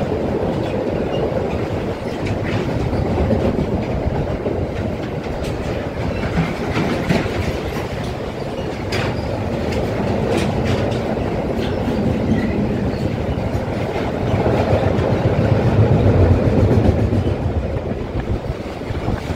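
Freight train passing: a steady rumble of wagons rolling by, with scattered clicks and clacks of wheels over rail joints, loudest a few seconds before the end.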